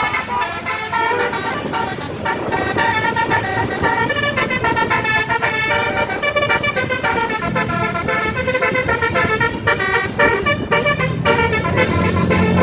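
Bus telolet horn, a multi-tone horn playing a quick melody of stepped notes that keeps changing pitch. A low steady drone comes in underneath from about halfway.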